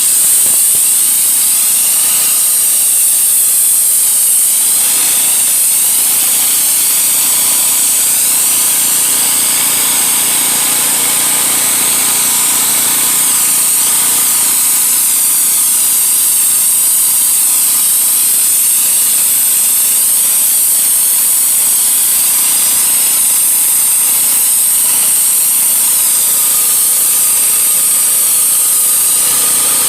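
Pressure washer running, its jet hissing steadily and loudly against concrete.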